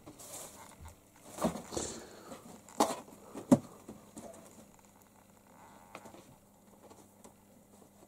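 A run of knocks, scrabbling and rustles as a kitten scrambles up onto a cardboard box, the loudest thump about three and a half seconds in, then faint scratching.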